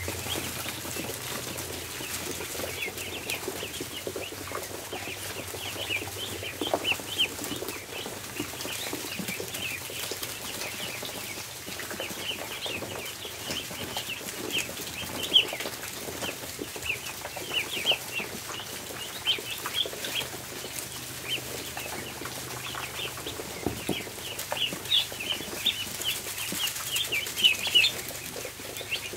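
A crowd of ducklings peeping without pause, many short high peeps overlapping, with scattered light taps and a faint low steady hum underneath.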